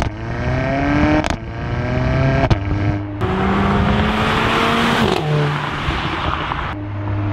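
Mercedes-AMG A45's turbocharged four-cylinder with sports exhaust accelerating hard: the engine note climbs in pitch and drops back at each gear change, about a second and two and a half seconds in. From about three seconds in it settles into a steadier drone under a rushing noise as the car drives on.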